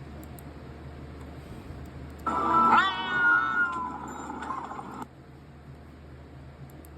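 A single drawn-out, high-pitched cartoon animal cry. It starts about two seconds in, dips and then rises in pitch, lasts nearly three seconds, and cuts off abruptly.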